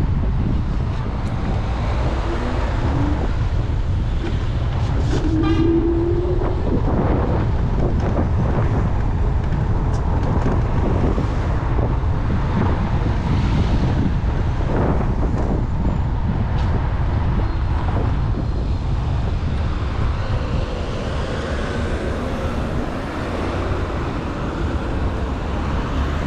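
Wind buffeting the microphone and road rumble while riding a Segway GT2 electric scooter, with scattered knocks and a short rising tone about five seconds in.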